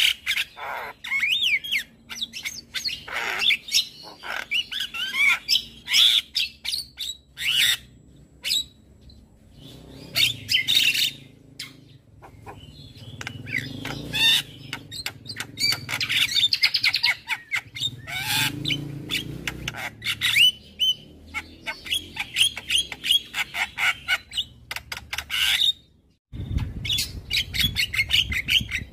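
Javan myna (jalak kebo) singing a fast, varied stream of chirps, whistles and harsh squawks. It breaks off abruptly for a moment near the end.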